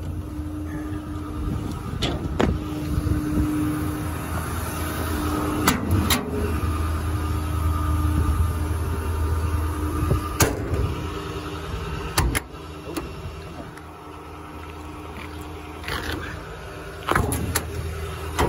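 A 6.4L Power Stroke diesel idling steadily with its PTO engaged, under a series of sharp clicks and clunks from utility-body compartment doors and latches being opened.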